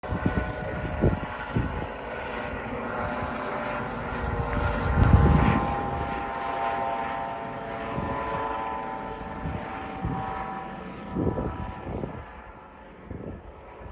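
Helicopter flying overhead: a steady droning whine from its engine and rotor, with irregular low thumps, the loudest about five seconds in.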